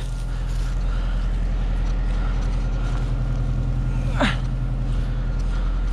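Tractor engine running steadily with a low, even hum while a straw bale processor is being loaded. About four seconds in there is one short, falling squeal.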